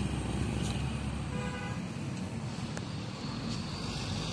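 Steady rumble of road traffic, with a short vehicle horn toot about a second and a half in.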